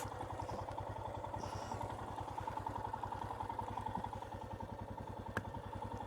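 Royal Enfield Himalayan's single-cylinder engine idling with an even, steady beat. A single sharp click comes about five seconds in.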